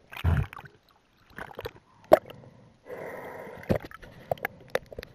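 Water sounds picked up through an underwater action camera: a splashy burst of bubbles about a quarter-second in, then gurgling with several sharp clicks and knocks.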